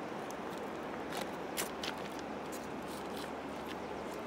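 River water running over shallow rocks, a steady rushing, with a few light clicks about one to two seconds in.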